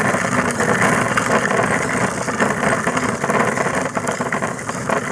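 Hand-turned granite millstone, the upper stone spun fast by a wooden stick handle and grinding against the lower stone: a continuous rough stone-on-stone rumble as bird seed is cracked between the stones.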